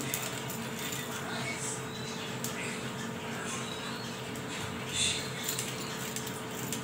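Wooden rolling pin rolling out a stuffed paratha on a stone rolling board: faint rolling and handling sounds with a soft knock about five seconds in, over a steady hum.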